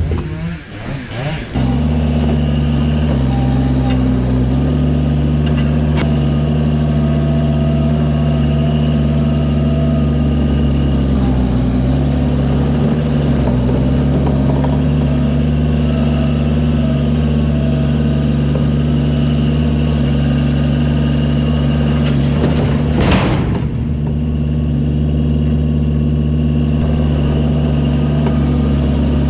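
Mini skid steer loader engine running steadily under the operator, its pitch dipping briefly a few times as it works a log grapple. A short clatter stands out about three-quarters of the way through.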